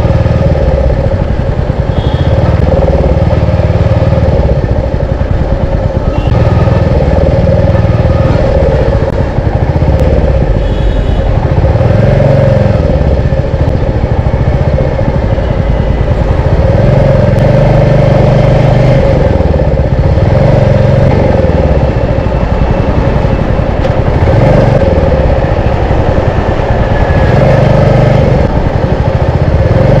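Royal Enfield Meteor 350's single-cylinder engine running under way, its pitch rising and falling every few seconds as the throttle is opened and closed.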